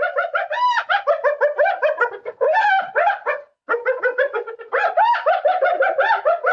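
Spotted hyena giggling: a fast string of short, high, yelping notes, about six or seven a second, breaking off for a moment about three and a half seconds in and then going on again.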